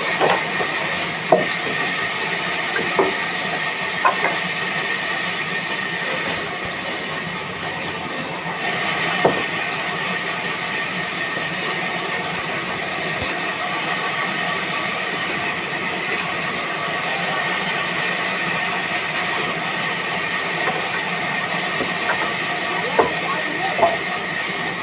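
Sawmill machinery running with a steady hissing noise and a faint high tone, broken by a few sharp clicks.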